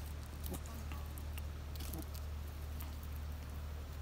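Spitz puppy gnawing a twig: small scattered clicks and crackles of teeth on wood, over a steady low rumble.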